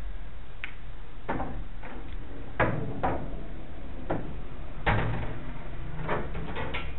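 Pool balls knocking on a pub pool table after a break shot: about ten sharp clacks and knocks spread over several seconds as the red and yellow balls hit each other and the cushions, the two heaviest about two and a half and five seconds in.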